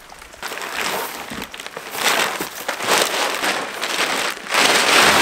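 Plastic tarpaulin rustling and crinkling in bursts as it is pulled back off a boat, loudest near the end.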